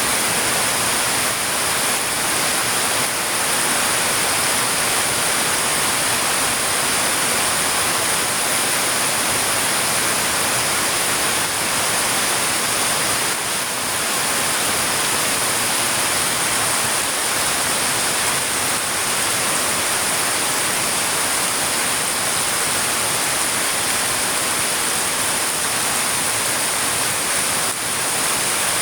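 Heavy rain falling steadily, a dense, even hiss without a break.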